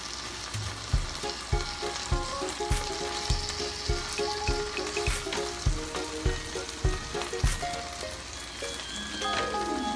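Tuna steak sizzling in sauce in a frying pan while a spoon stirs and bastes it. Background music with a steady beat and a melody plays over it.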